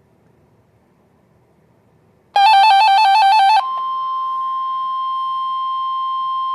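Faint radio hiss, then about two seconds in a loud electronic alert warbling rapidly between two pitches for just over a second. It switches straight into the steady 1050 Hz NOAA Weather Radio warning alarm tone, which opens the weekly test of the alarm system.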